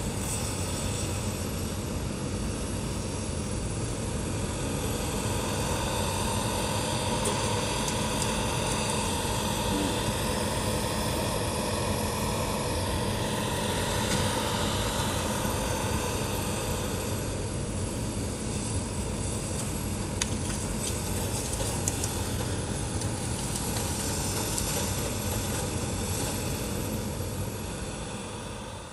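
Diesel engine of a Caterpillar 568 tracked forestry machine running steadily as the machine works and moves over slash, with a few light knocks.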